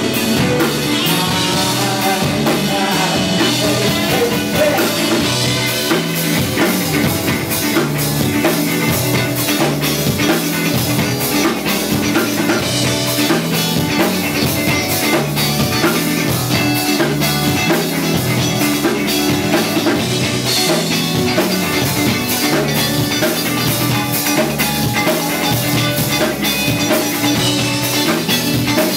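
Rock band playing live, mostly instrumental: drum kit with cymbals, electric guitar and a bass line moving between notes, at a steady full level.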